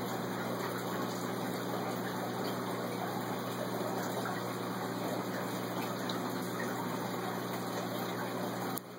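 Steady rush of water circulating in a saltwater stock-tank pond, with a low, even hum underneath. The level dips suddenly just before the end.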